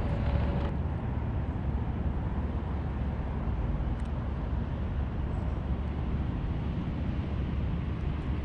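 Wind buffeting the microphone: a steady, even low rumble with no clear pitch.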